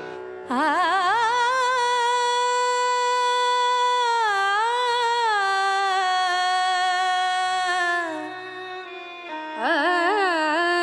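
Woman singing long held notes in Indian classical style, the pitch wavering as each note opens: one note held for about seven seconds, then a second phrase rising in near the end.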